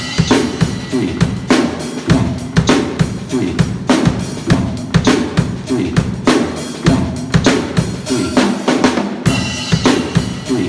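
Acoustic drum kit played with sticks: a steady groove of snare, bass drum and cymbal strokes.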